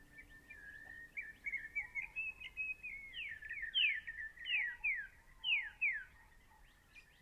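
Whistled, bird-like calls: pairs of quick falling whistles repeated several times, with a warbling run of notes in between, over a steady held tone. They stop about a second before the end.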